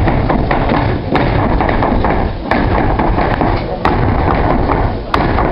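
Step dancers' shoes striking the stage floor in irregular sharp taps and thuds, over a loud, dense background.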